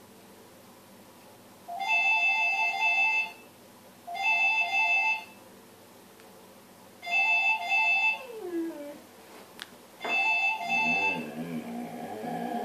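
An electronic alert tone, like a phone ringtone, sounds in four short beeping bursts. A Dalmatian answers with a falling howl near the middle, then howls again with wavering pitch over the last bursts.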